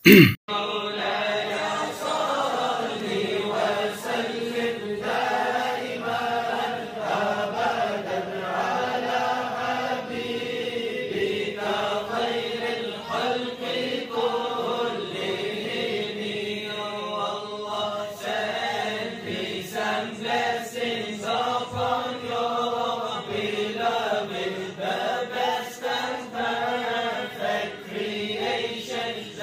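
Sung Islamic devotional chant (a naat), carrying on steadily as background music.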